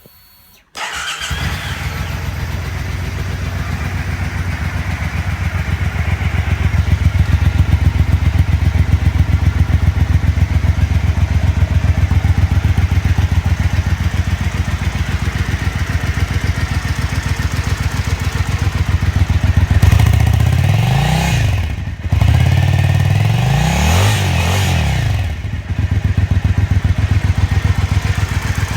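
2016 Triumph Speedmaster parallel-twin motorcycle engine on its stock exhaust. It starts up about a second in and idles with an even pulsing beat. Past the middle it is revved twice, each time rising and falling back, then it settles to idle again.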